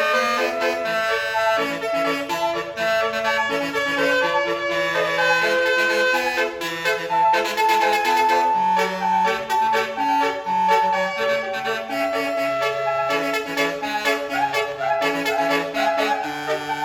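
Basuri telolet bus horn, a multi-note electric air horn, playing a programmed melody note by note, with a reedy, clarinet-like tone.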